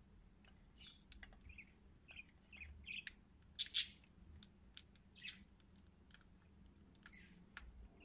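Cockatiels chirping in short, high calls, the loudest about halfway through, with scattered sharp clicks in between.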